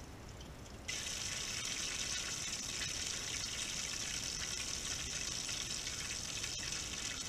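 Hot deep-fryer oil sizzling steadily around crab rangoon wontons. The sizzle jumps up suddenly about a second in, as the fryer lid is opened, and then holds.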